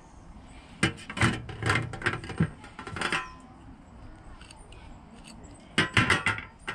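Metal tomato corer and stainless steel tray giving small clinks and scrapes while a tomato is cored. The sounds come in two flurries, one from about a second in and a shorter one near the end.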